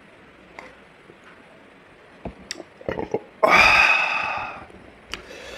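A few short mouth clicks and smacks from eating, then a loud, breathy vocal burst of about a second that fades away, like a burp or a forceful exhale.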